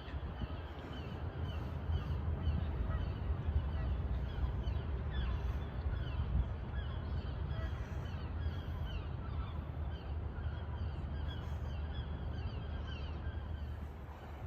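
Birds calling again and again in short falling calls over a steady low rumble.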